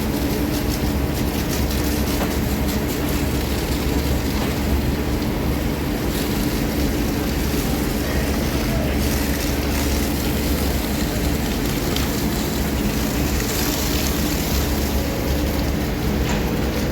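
Diesel engine of a heavy machine running steadily with an even, unchanging drone.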